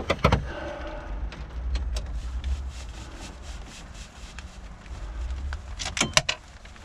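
Plastic dash bezel of a 2004 Ford Expedition being pried loose with a long screwdriver: plastic rubbing against metal, a few sharp clicks near the start, then a quick run of loud clicks about six seconds in.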